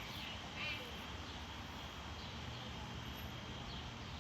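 Short, raspy, high-pitched animal chirps: one right at the start, a stronger one about 0.7 s in, then a few fainter ones, over a steady low background rumble.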